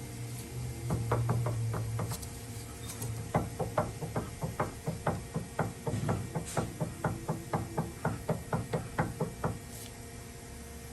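Loose stabilizer (sway bar) links in a Dodge Dakota's suspension clunking: a few knocks, then a steady run of about three clunks a second that stops near the end. The clunking is the sign of worn, loose sway bar links.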